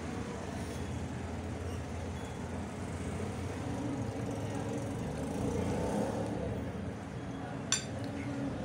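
Steady low background rumble, with one sharp clink of a metal spoon against a plate near the end.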